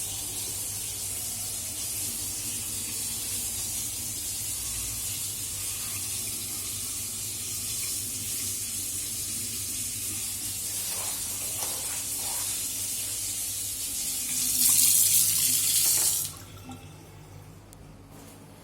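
Water running with a steady hiss, louder for about two seconds, then shut off suddenly about 16 seconds in.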